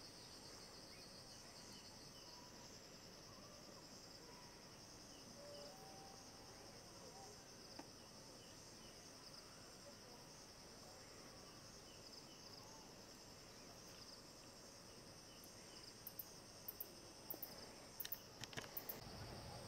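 Faint dusk chorus of insects, a steady high trill, with a few sharp clicks near the end.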